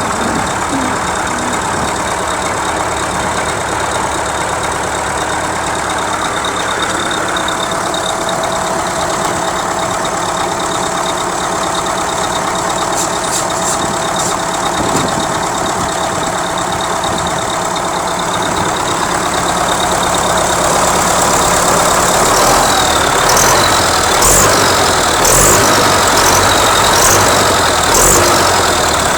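Turbocharged diesel engine of an MTZ-80 tractor running, with a thin, steady high turbo whistle over the engine note. Near the end it is revved several times, about a second apart, and the whistle rises and falls with each rev.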